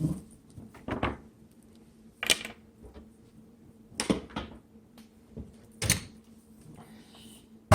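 Knocks and clunks from handling a Dell OptiPlex 9020 small-form-factor desktop case as it is set in place and its parts are moved: about six separate knocks a second or two apart.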